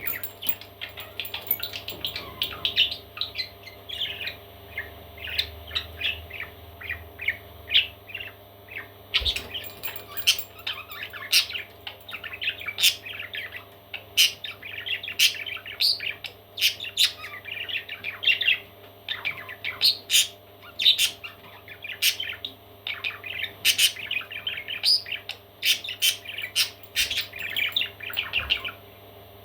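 Parrot chicks chirping in a dense run of rapid, short calls, with scattered sharper, louder calls among them. The chirping stops shortly before the end.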